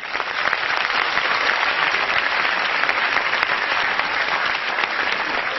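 Audience applauding after a recitation, starting suddenly and keeping up steadily.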